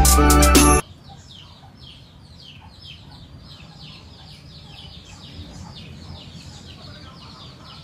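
Background music cuts off suddenly under a second in. It is followed by faint bird calls: short high chirps that slide downward, repeating about three times a second.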